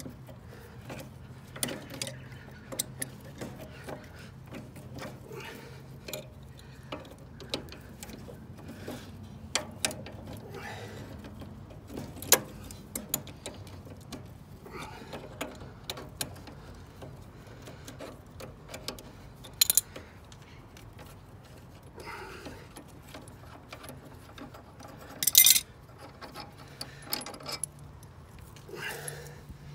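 Hand tools clicking, scraping and clanking against the steel steering kingpin fittings of a Greenfield E2000 ride-on mower, with scattered sharp metallic clicks and a few louder clanks.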